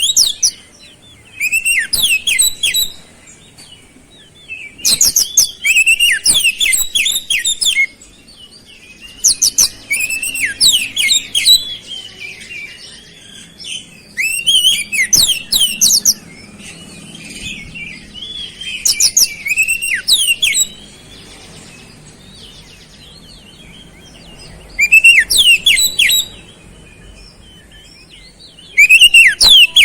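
Oriental magpie-robin singing in loud bursts of rapid high chirps and sweeping whistles, its song filled with mimicked flowerpecker notes. About eight short phrases come every few seconds, with quiet gaps between them.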